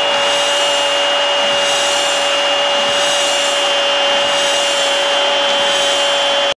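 Stadium crowd roar from a football broadcast just after a goal: a loud, steady roar with a couple of held tones in it, cutting off suddenly near the end.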